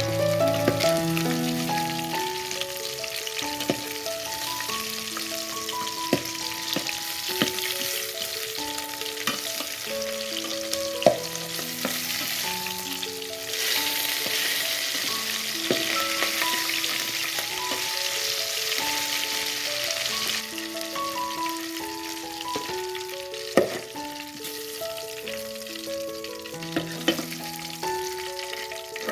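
Food sizzling in a hot pan, louder for several seconds in the middle, with a few sharp clicks of a utensil against the pan. Soft melodic background music with held notes plays throughout.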